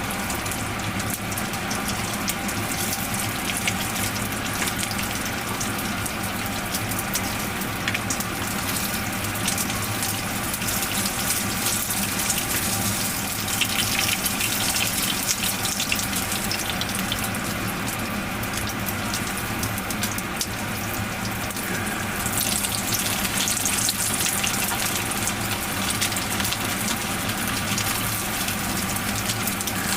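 Hot oil sizzling and crackling steadily around menchi katsu (breaded minced-meat cutlets) deep-frying in a frying pan, with a little more crackle at times.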